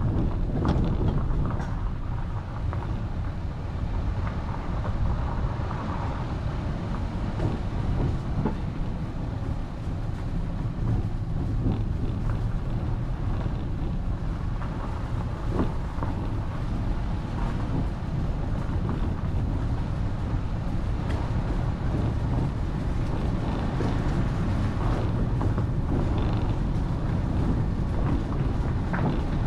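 A vehicle running along a road: a steady low rumble of engine and road noise, with scattered clicks and rattles over it.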